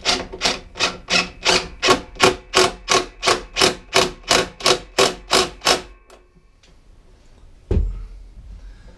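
Impact wrench on a long extension with a 13 mm socket running a bolt in: a steady run of sharp hammering clatters, about three a second, for about six seconds before it stops. A single heavy thump follows near the end.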